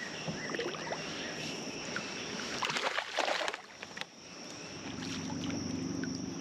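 Water and handling noises aboard a small fishing boat, with a louder splash-like rush about three seconds in, then a low steady hum setting in near the end.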